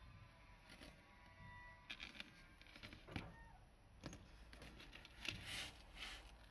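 Faint handling noise from wolf tooth pendants on stainless steel chains being turned in a cotton-gloved hand: a few light clicks and some rustling.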